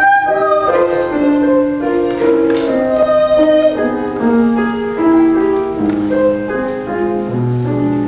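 A grand piano plays the accompaniment to a classical art song, with a young woman's voice singing over it.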